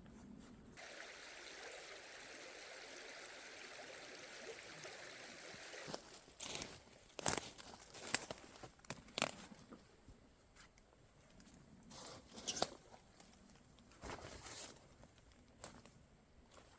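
A steady rushing hiss that stops abruptly about six seconds in, followed by irregular sharp crunches and cracks of dry forest litter underfoot.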